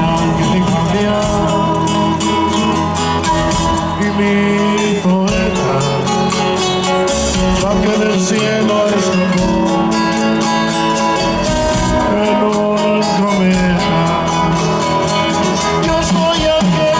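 Andean folk band playing live: guitars strummed in a steady rhythm, with held melody notes and singing over them.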